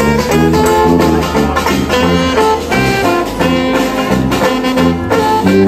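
A small live jazz band playing a jazz tune: sousaphone, saxophone, banjo and snare drum. Low sousaphone bass notes run under the melody.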